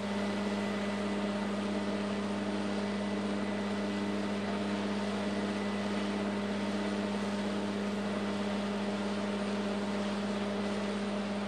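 A large engine or machine running steadily at constant speed, a low even hum with no change in pitch or level.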